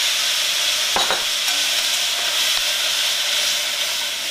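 Wet spice paste sizzling steadily in hot oil in a stainless steel pan as a spoon scrapes it out and stirs it, with a spoon clink about a second in.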